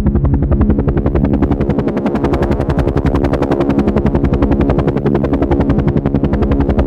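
Helicopter running steadily, its rotor making a rapid, even chopping beat over a low drone.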